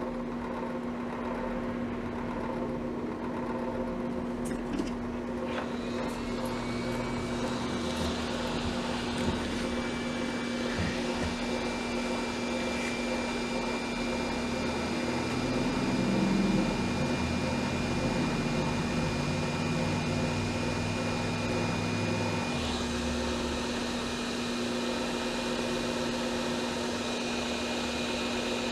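Electric heat gun blowing steadily, its fan motor humming with a faint steady whistle, as heat-shrink tubing is shrunk over a soldered wire splice.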